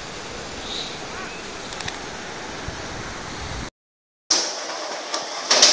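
Steady rushing outdoor noise with no distinct events. It breaks off for a moment of dead silence about two-thirds of the way in, then a brighter hiss with a few sharp clicks starts.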